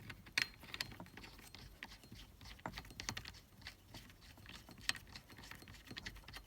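Irregular light metallic clicks and taps as the steering-shaft nut is threaded on by hand over the NRG short hub, with a sharper click about half a second in and another near five seconds.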